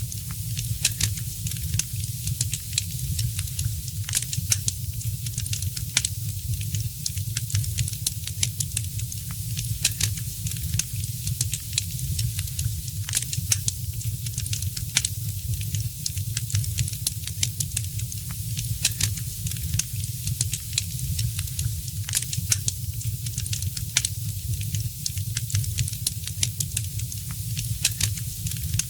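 Wood fire crackling: many irregular sharp snaps and pops over a steady hiss and a low rumble.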